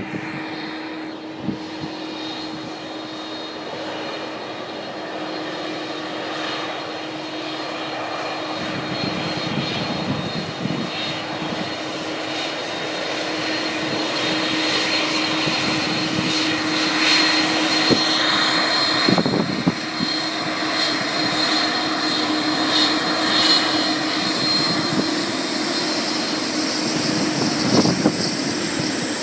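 McDonnell Douglas MD-11 trijet taxiing on its jet engines: a steady whine over a rush of jet noise, slowly growing louder as the aircraft passes close by.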